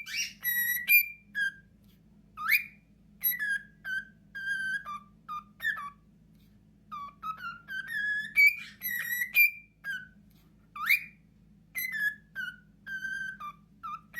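High whistle-like notes, short and repeated in irregular groups with pauses, some sliding upward and others dropping, over a faint steady hum.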